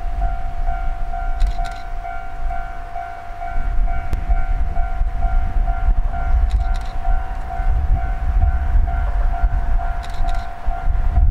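Japanese level-crossing alarm ringing its electronic bell in an even, quickly repeating ding-ding, warning of an approaching train.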